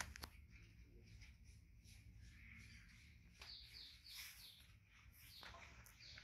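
Near silence, with faint high bird chirps a few times past the middle and a couple of soft clicks right at the start.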